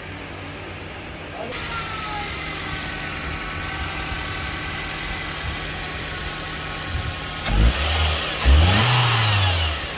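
Toyota Corolla's VVT-i four-cylinder engine idling steadily, then revved up twice near the end, the second rev rising and falling back, as its response is checked with the cleaned mass air flow sensor. Before the engine comes in, about a second and a half in, there is only a low background hum.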